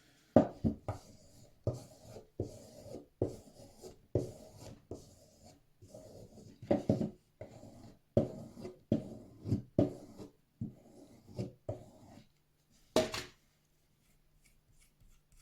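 Serrated blade of a multitool drawn back and forth across a surface in short rasping strokes, about two a second, stopping about twelve seconds in; one sharper scrape follows about a second later. The blade's edge has a lot of burrs.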